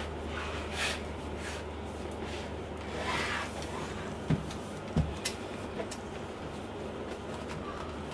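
A cardboard laptop box being handled and flipped over on a wooden desk: brief rubbing and sliding of the box, then two light knocks about four and five seconds in as it is set down. A steady low hum runs underneath.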